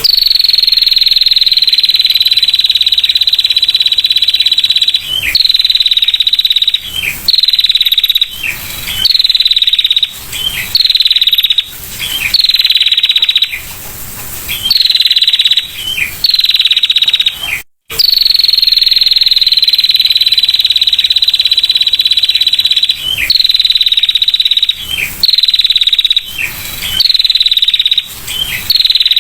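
Female prinia (prenjak) giving its 'ngetir' call: a loud, fast buzzing trill held at one high pitch. It comes in long bursts broken by short pauses and quick falling notes. The first burst lasts about five seconds and the later ones are shorter. The sound cuts out for an instant a little past the middle, then the long trill starts again.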